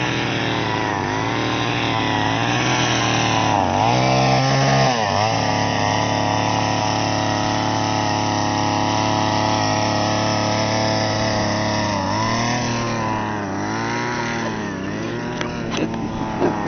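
Small petrol engine of a walk-behind turf machine running steadily, its pitch wavering and rising briefly about four seconds in. A few sharp knocks near the end.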